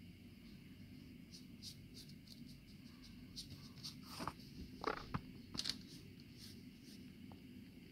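Faint scratchy strokes of a small, nearly dry paintbrush being wiped on a plastic mat and dry-brushed over an action figure's sculpted wing, with a few sharper scrapes about four to six seconds in.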